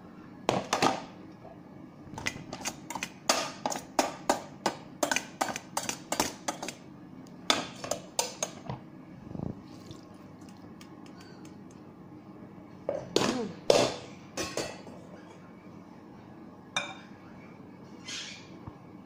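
A metal pot and spoon clinking and knocking against a glass mixing bowl as cooked elbow macaroni is tipped and scraped into it. The clinks come in bursts: a long quick run in the first half, then a few shorter groups.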